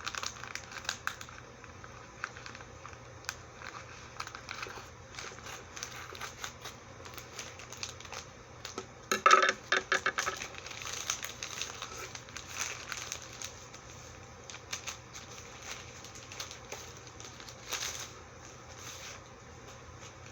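Paper and envelope packaging rustling and crinkling as a mailed package is opened and its contents handled, with scattered small clicks and a louder burst of crinkling about nine seconds in.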